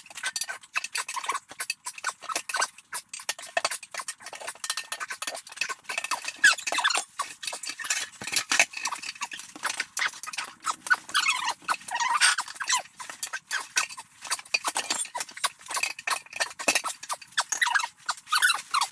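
Hand tools working a tire bead loose from a steel rim: a rapid, uneven run of metallic clinks and knocks from tire irons and a bead breaker, with short rubber squeaks.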